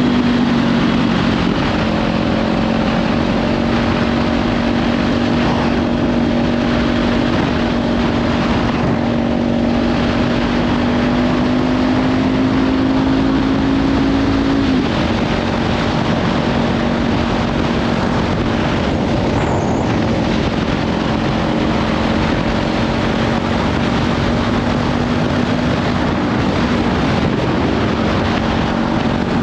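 Kawasaki Ninja 500's parallel-twin engine, fitted with a Leovince slip-on exhaust, running steadily while riding, under heavy wind noise on the microphone. The engine note drops in pitch about a second in and again about halfway through.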